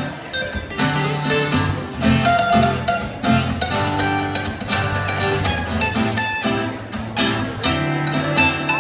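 Two acoustic guitars playing an instrumental passage live, a quick run of plucked notes over held chords.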